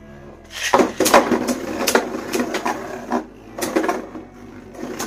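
A Beyblade Burst top is ripped from its launcher into a plastic stadium about a second in. Two spinning tops then rattle and clash against each other and the stadium walls in a run of sharp clacks.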